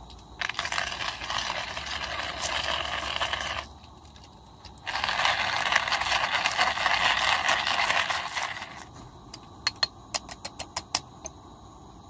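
Manual coffee grinder crunching coffee beans as its crank is turned, in two stretches of about three and four seconds with a short pause between. Near the end a quick run of sharp clicks and taps.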